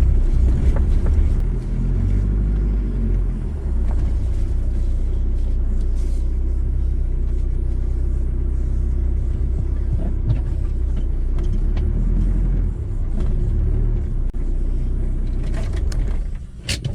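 Steady low rumble of a motor vehicle on the move, with a couple of sharp clicks near the end.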